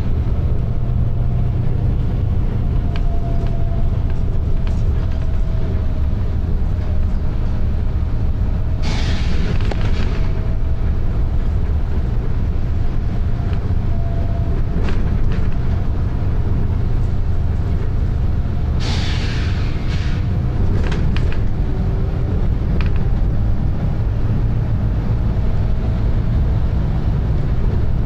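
Volvo B9TL double-decker bus's six-cylinder diesel engine running hard, heard from inside the bus as a loud, steady low drone (thrash). It is broken by two short hisses from the bus's air system, about nine and about nineteen seconds in.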